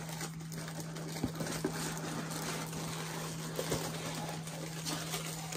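Steady background hiss with a low hum, and a few faint light taps as a cardboard coffin-shaped doll box is handled.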